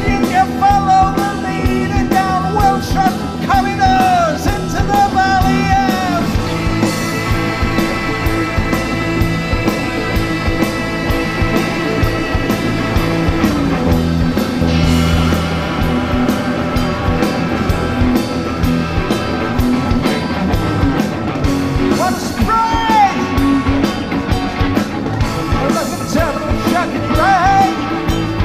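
Rock music with singing: a sung line at the start, a long passage of held instrumental chords in the middle, and the voice returning in the last few seconds.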